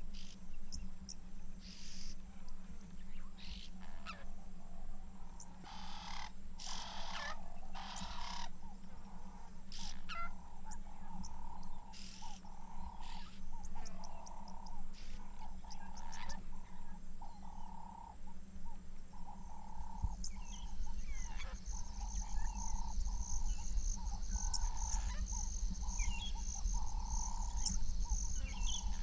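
Wetland animal chorus: a call repeated about once a second, scattered bird calls, and a fast pulsing insect-like chirr that starts about two-thirds of the way through, over a steady low hum.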